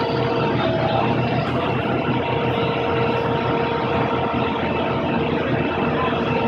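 An engine running steadily as a dense, even noise with a few faint steady tones above it.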